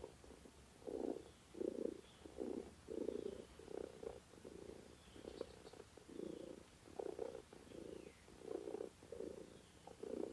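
Domestic cat purring: an even run of soft pulses, about one and a half a second.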